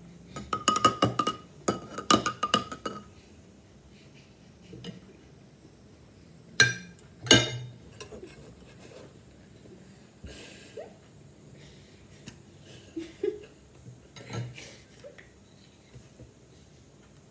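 Metal spoon and ice-cream scoop clinking and scraping against a ceramic plate and bowl. A quick run of ringing clinks over the first few seconds, two sharp knocks about six and a half and seven seconds in, then a few lighter clinks later.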